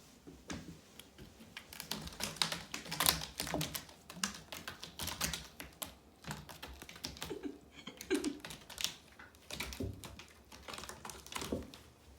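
Irregular, rapid clicking and tapping of a cat playing with a cat teaser toy: paws and claws scrabbling and striking, with a few soft thuds.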